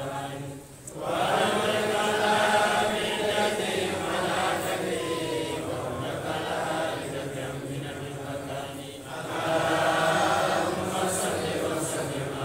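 A congregation of men chanting together in long sustained phrases, with brief breaks about a second in and again near nine seconds.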